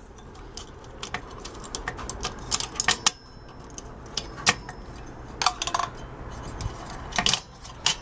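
Scattered sharp clicks and metal clinks as pieces of a microwave magnetron's broken ceramic ring magnet are handled against its steel frame. A cluster of clinks with a short ring comes about five and a half seconds in, and a few sharper clicks near the end.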